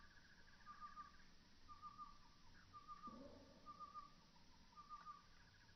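Faint bird call: a short, high trilled phrase repeated evenly about once a second. A brief lower sound comes about three seconds in.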